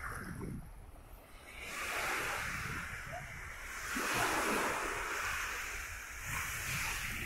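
Small sea waves breaking and washing up a sandy beach, the hiss of the wash swelling and easing every couple of seconds, with a low rumble of wind on the microphone.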